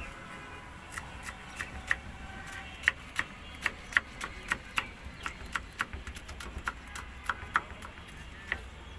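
A knife chopping green chillies on a cutting board set in a steel tray. It makes sharp, slightly ringing knocks, irregular, about three a second.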